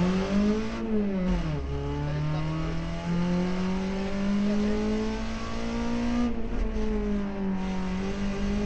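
Rally car's engine under hard acceleration from the start. The note climbs, falls sharply about a second and a half in at an upshift, then rises slowly as the car gathers speed. It dips again about six seconds in and climbs once more.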